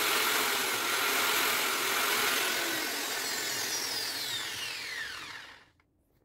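Makita GA9020 9-inch angle grinder, just fitted with a new switch, running free at full speed. About halfway through it is switched off, and its whine falls in pitch as it coasts down, stopping a little before the end.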